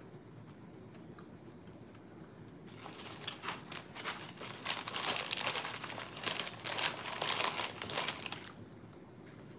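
A white takeout food bag crinkling and rustling as a hand rummages in it and lifts it: a dense run of crackles starting about three seconds in and lasting about six seconds.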